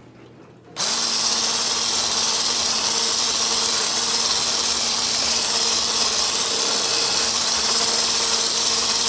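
Handheld electric mixer with a single wire whisk attachment switching on about a second in, then running steadily with a constant whir and hum as it beats butter, ricotta and sugar.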